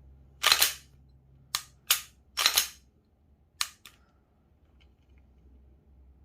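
A Glock pistol being cycled and dry-fired for a trigger pull weight measurement: about seven sharp metallic clicks and snaps in the first four seconds, some in close pairs, from the slide being worked and the striker snapping as the trigger breaks.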